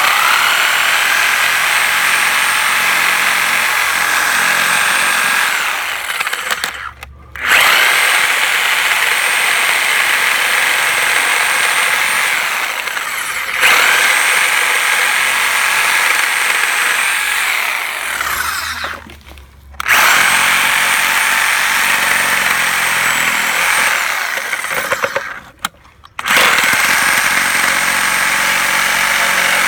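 Handheld electric power saw cutting through the wooden dowels of a rocking chair, running in five bursts of about five to six seconds each. Each burst starts with a rising whine, holds a steady high whine, and winds down in falling pitch before the next start.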